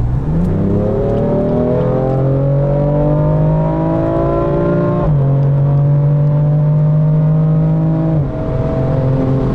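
BMW M4 Competition's twin-turbo straight-six with an M Performance rear silencer, heard from inside the cabin with the windows up, accelerating. The engine note rises for about five seconds and drops sharply at an upshift. It then holds fairly level and drops again at a second upshift about a second before the end.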